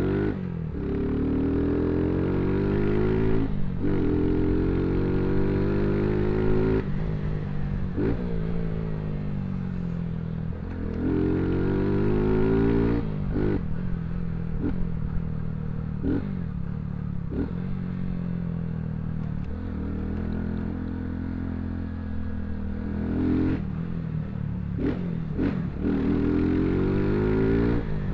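Motorcycle with a loud aftermarket exhaust under way, the engine revving up and dropping back again and again, with short breaks in the note every few seconds as it shifts gear.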